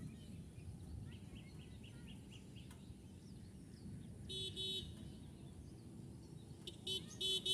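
A vehicle horn honks twice a little after the middle, then three more times, louder, near the end, over a steady low outdoor rumble. A bird chirps in a quick run of short calls early on.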